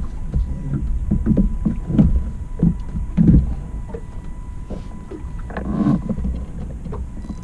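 Wind buffeting the microphone and water lapping against a small boat, with irregular low thuds and a faint steady high tone underneath.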